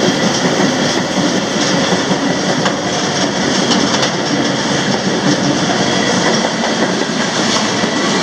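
Freight train rolling on the rails: a loud, steady rumble and clatter of the cars' wheels and running gear.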